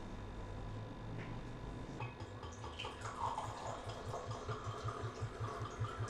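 Red wine poured from a bottle into a stemmed wine glass, starting about two seconds in: the bottle glugs in quickening rhythm while the wine splashes into the glass.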